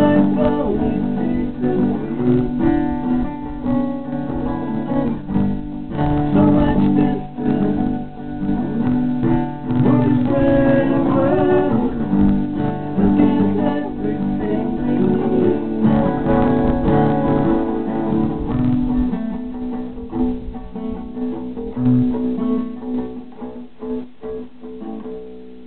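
Live acoustic rock song: two acoustic guitars, one an Olympia, strummed under singing. About two-thirds of the way through the playing grows quieter and winds down to a few last strums near the end.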